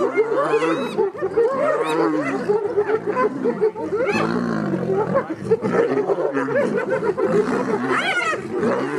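Spotted hyenas squabbling over a buffalo kill: a dense chorus of many overlapping calls, with rising and falling groans, growls and quick high-pitched giggles and squeals.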